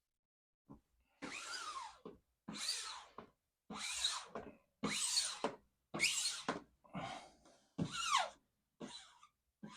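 A squeegee swiped across a wet vinyl decal on a car hood in about eight squeaky rubbing strokes, roughly one a second, pushing out the water and air from the middle outward.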